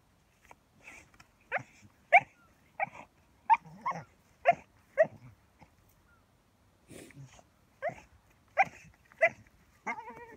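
Dog giving short, sharp barks while digging in sand, about a dozen in two runs with a pause of a couple of seconds between them.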